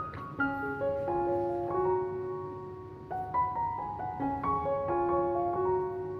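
Background music: a simple melody of piano notes, each struck and held.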